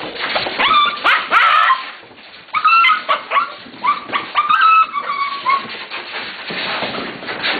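Several white German Shepherd puppies whining and yipping, a string of short high-pitched calls in the first five and a half seconds, followed by a steady noise.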